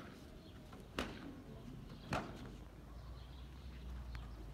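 Two sharp cracks or knocks about a second apart, over a steady low rumble.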